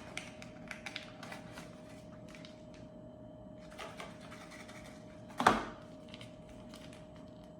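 Small accessories and packaging being handled: scattered light clicks and rustles, with one sharper knock about five and a half seconds in, over a faint steady hum.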